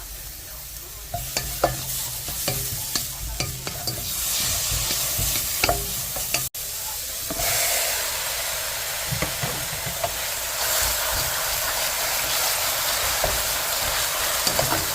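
Food frying and sizzling in a pot while it is stirred, a utensil clicking and tapping against the pot through the first six seconds. After a cut about six and a half seconds in, a steadier, slightly louder sizzle.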